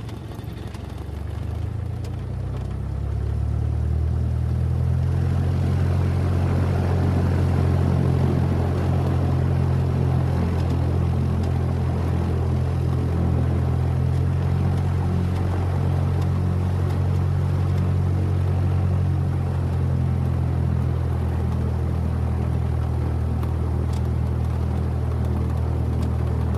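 Single-engine Cessna's propeller engine heard from inside the cabin while taxiing: a steady low drone that swells over the first few seconds, then holds level.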